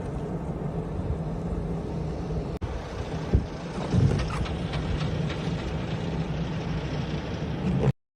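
Steady engine drone of a motor vehicle with wind noise on the microphone, a few knocks around the middle, cutting off abruptly near the end.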